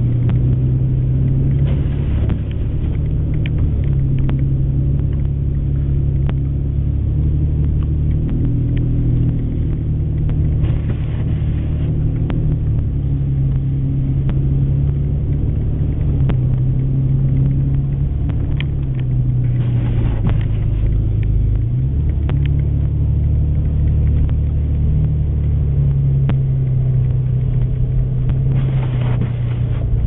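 Car engine and tyre rumble heard inside the cabin while driving slowly through deep snow: a steady low drone whose pitch shifts a little as engine speed changes, with a brief hiss about every nine seconds.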